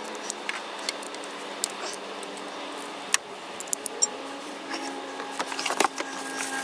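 Scattered sharp metallic clicks and clinks of hand tools being worked under an ATV, over a steady background hum; the clicks come thickest past the middle.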